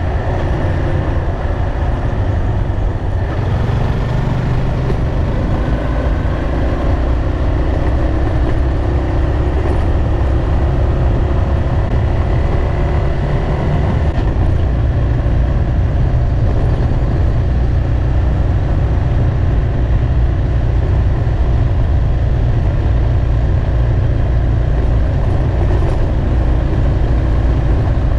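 Yamaha motorcycle riding at a steady pace: the engine runs continuously under a heavy, deep rumble of wind and road noise on the bike-mounted camera's microphone.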